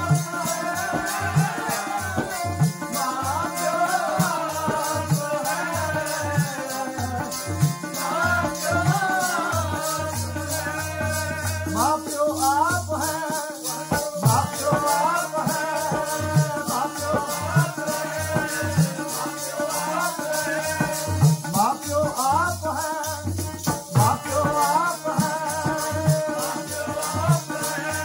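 Sikh kirtan music: a sustained melody line over drum strokes, with a fast, even rattle keeping time throughout.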